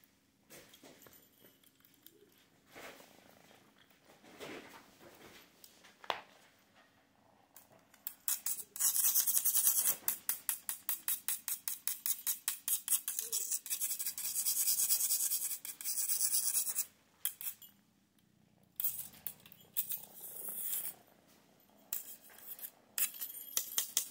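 Small bell on a feather wand cat toy jingling in quick, rapid shakes as the toy is flicked and batted, loudest for several seconds in the middle, then in shorter bursts near the end.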